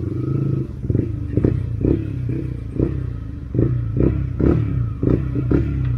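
Yamaha MT-125's single-cylinder 125 cc engine running, with about nine short, sharp sounds at irregular intervals over it.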